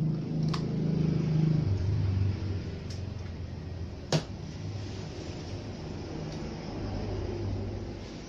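A mains plug being handled and pushed in, giving a few sharp clicks with the loudest about four seconds in, over a steady low rumble.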